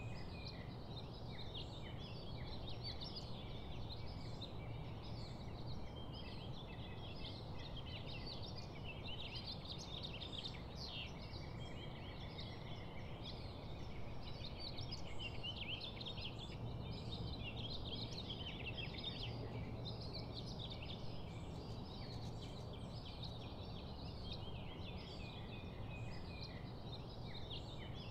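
Outdoor ambience: a dense, continuous chorus of many short high chirps over a steady low rumble.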